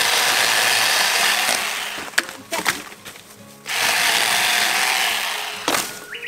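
Cordless 20 V electric pole chainsaw (VOLTAGA ET1612) cutting through young regrowing bamboo stems in two bursts of about two seconds each, with a few sharp knocks between them and a brief rising whine near the end.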